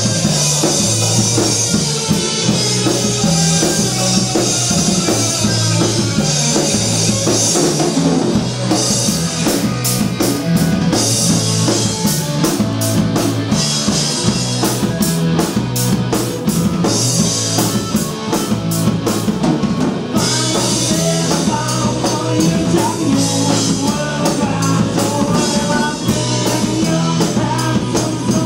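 Live rock band playing loud and steady: electric guitar, bass guitar and drum kit, with a run of evenly spaced drum and cymbal hits through the middle stretch.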